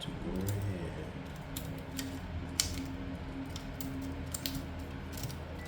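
Scattered small clicks and taps of plastic laptop parts being handled and pressed during a keyboard replacement, over a steady low hum.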